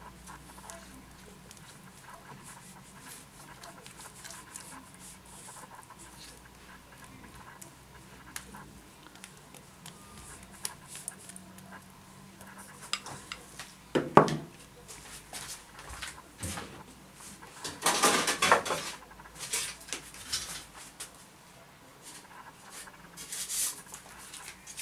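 Pizza sauce being spread by hand over dough in a metal baking tray, with small scrapes and handling noises over a faint hum. About halfway through there is one sharp knock, then a longer burst of clatter a few seconds later and another short one near the end.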